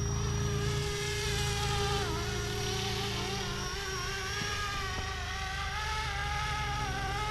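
450-size RC scale helicopter (Flishrc Little Bird) in flight: a steady buzzing whine of motor and rotor whose pitch wavers up and down, dipping about two seconds in.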